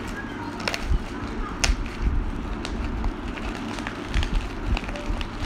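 Plastic bubble wrap crinkling and rustling as it is handled, with irregular sharp crackles, over a steady low hum.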